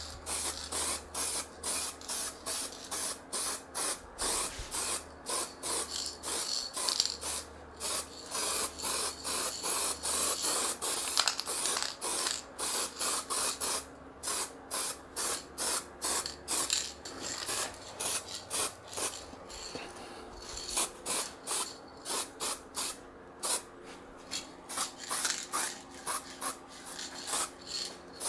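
Aerosol spray paint can hissing in many short bursts, about one or two a second, with a longer stretch of near-continuous spraying partway through.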